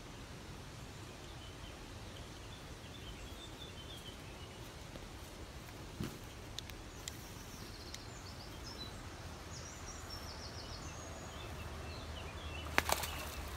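Small birds chirping in short repeated phrases over a steady outdoor hiss. About a second before the end there is a sharp, loud splash as the hooked sea trout thrashes at the surface.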